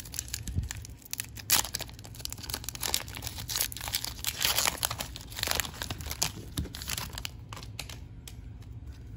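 Foil wrapper of an Upper Deck MVP hockey card pack being torn and crinkled open by hand, a dense run of irregular crackles that thins out near the end.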